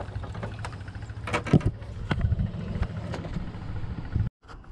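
Knocks and clicks as a just-caught fish and the fishing tackle are handled in a wooden boat, over a steady low engine hum. The sound drops out for a moment near the end.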